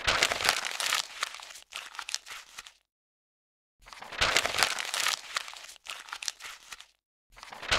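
A sheet of paper being crumpled and crinkled in three bursts, with dead silence between them.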